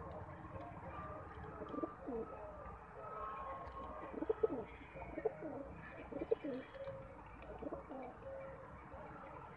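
Rock pigeons cooing: low coos come in short clusters, loudest from about four to six and a half seconds in.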